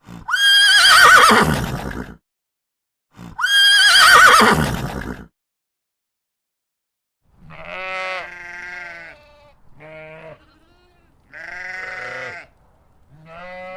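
Goats bleating: two loud, high bleats with a wavering pitch, then after a short pause a string of four lower, shorter bleats.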